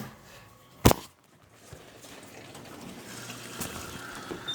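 Brastemp Ative top-loading washing machine starting its cycle: a sharp click about a second in, then water starting to run into the tub, growing steadily louder as it fills.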